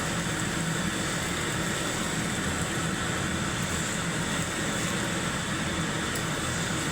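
Steady hiss of spicy chicken frying in a hot pan.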